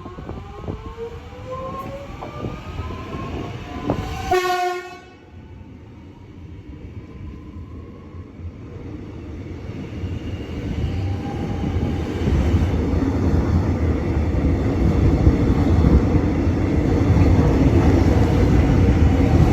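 X'Trapolis electric train: the traction motors whine with a rising pitch over the first few seconds, a short horn blast sounds at about four and a half seconds, then a train's rumble builds from about ten seconds in and is loudest in the last several seconds.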